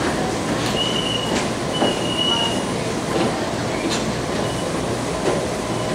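BART train standing at an underground platform with its doors open: a steady hum and rumble from the cars, with a high thin tone that comes and goes several times.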